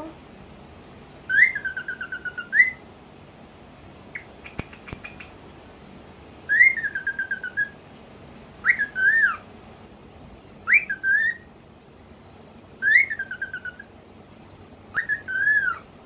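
Cockatiel whistling the same short phrase about six times, each a quick rising note followed by a held or wavering falling tone, with a brief run of faint clicks in between.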